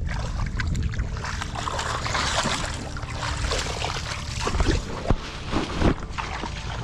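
Water splashing and sloshing, loudest a couple of seconds in, over a steady low rumble, with a few sharp thumps around five to six seconds in.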